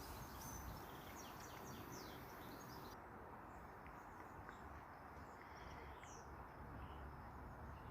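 Faint chirps of small garden songbirds over a steady low background hiss: a quick cluster of short high chirps in the first couple of seconds, then only a few scattered ones.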